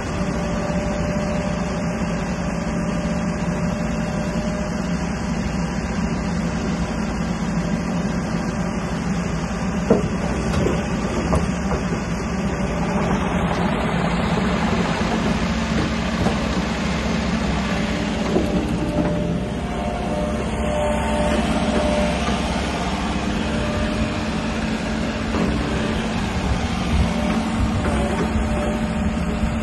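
JCB 90Z-2 midi excavator working: its diesel engine runs steadily, with hydraulic whine and a few clanks as the boom moves and the machine tracks and slews.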